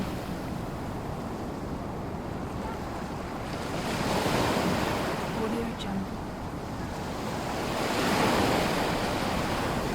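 Waves breaking and washing up a shore, a steady hiss of surf that swells twice, about four seconds in and again about eight seconds in.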